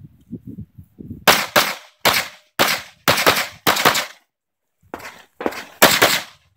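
S&W M&P 9L Performance Center custom pistol firing 9mm major loads in quick pairs, about a dozen shots, with a short break partway through.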